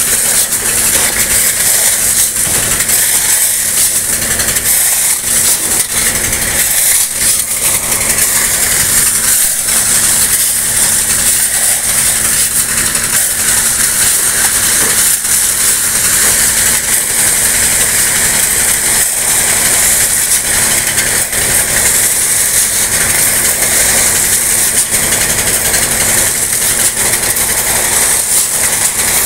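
Steady running of the engine that drives the gravel pump, under a constant hissing rush of water and gravel pouring from the pipe into the dump truck bed.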